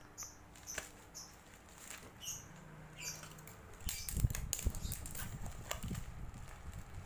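Plastic parcel wrapping crinkling and rustling as it is handled. About four seconds in, low bumps and rubbing of handling on the microphone take over.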